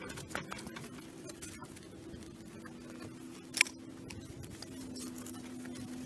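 Light clinks and scrapes as a terracotta chimney pot is set down on a wire grill over bricks, with one sharper clink about three and a half seconds in. A faint steady hum runs underneath and grows slowly louder.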